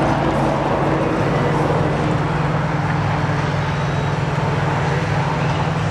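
Muscle car's V8 engine idling steadily.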